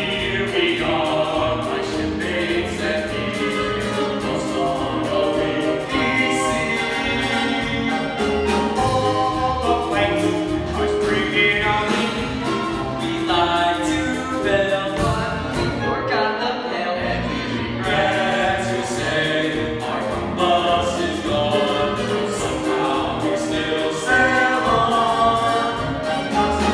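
A show tune sung by a small group of voices on stage, accompanied by a live pit orchestra.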